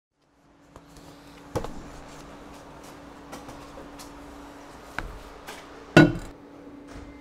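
Things being set down and handled on a wooden table: a drink bottle and a freeze-dried meal pouch knocking on the boards, with small clicks between, the loudest knock about six seconds in. A steady low hum runs underneath.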